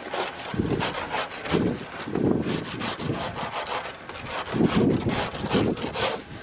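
Plastic scraper scraping crusted snow and ice off a car's side window in repeated coarse strokes, roughly one a second.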